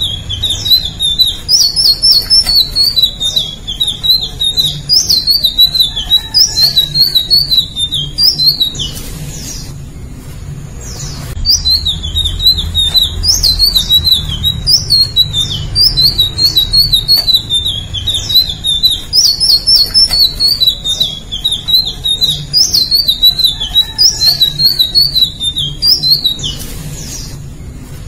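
Caged Eumyias flycatcher singing: fast, jumbled, high twittering warbles in runs of several seconds, with a gap of about two seconds a third of the way in and a shorter one near the end. A steady low hum runs underneath.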